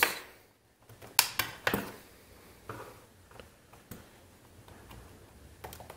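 Flathead screwdriver working a long screw out of a hedge trimmer's plastic housing: three sharp clicks about a second in, then faint scattered ticks and scrapes.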